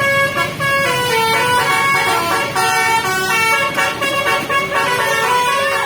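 Indonesian 'telolet' bus horn, a multi-tone musical horn run by an electronic module, playing a tune of held notes that change pitch about every half second.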